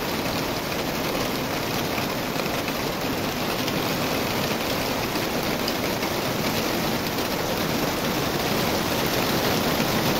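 Steady rain falling, an even hiss that grows a little louder near the end.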